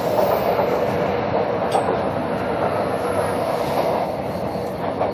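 A Shanghai Metro Line 3 train running along the track, heard from inside the carriage: a steady rumble of wheels and running gear with a steady tone running through it.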